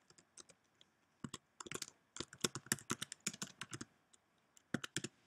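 Typing on a computer keyboard: a few scattered keystrokes, then a quick run of them from about a second in until nearly four seconds, and a couple more near the end.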